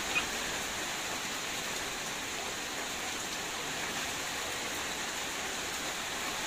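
Heavy rain falling steadily, an even hiss of rain on the ground and leaves, with one brief tick just after the start.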